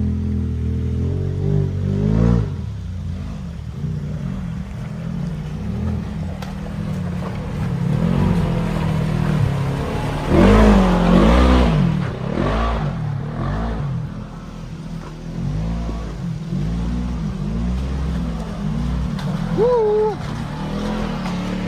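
Side-by-side off-road vehicle engines revving up and down as the machines climb, with the hardest surge about halfway through. A brief whistling tone sounds near the end.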